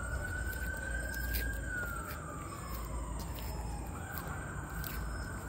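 A siren wailing: one long tone that holds, then slides down over about two seconds, and starts again high about four seconds in.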